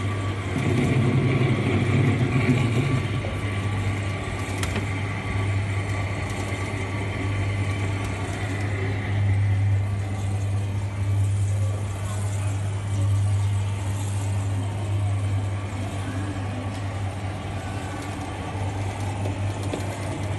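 Coin-operated kiddie ride car running, a steady low engine-like hum that stays level throughout.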